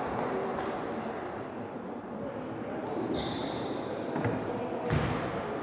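Table tennis ball knocking on bats and table during a rally, a few separate hits with a short high ring, the loudest near the end, over steady background noise.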